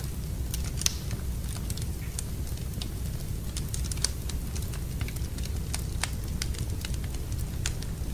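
Fire in a fireplace crackling: irregular sharp pops over a steady low rumble, with louder pops about a second in and about four seconds in.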